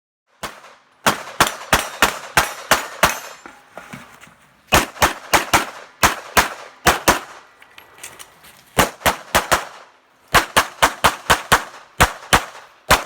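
Glock 17 Gen5 9mm pistol fired rapidly in strings of several shots a few tenths of a second apart, with brief pauses between strings. Each shot has a short echo.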